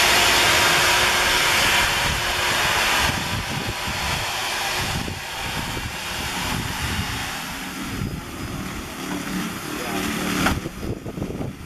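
Electric drill running with its attachment cutting and scraping out the inside of a pumpkin: a loud rasping hiss for the first few seconds, then a rougher, quieter grinding, with a sharp knock near the end.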